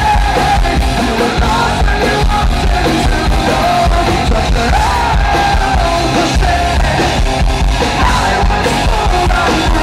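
Rock band playing live at full volume, with electric guitars, bass and drums, and a man singing the lead vocal over them.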